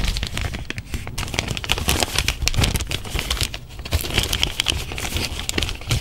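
Small clear plastic packet of powdered clothing dye crinkling as it is opened and handled, a dense run of irregular crackles and rustles.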